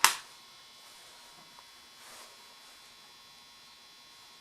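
A single sharp knock right at the start, then a steady faint electrical hum with a thin buzz.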